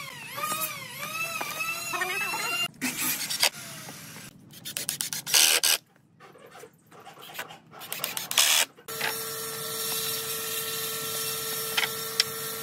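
Wooden boards scraped and shuffled on a concrete floor in three short bursts as they are laid out. High repeated chirping comes first, and a steady mechanical whine over a hiss sets in near the end.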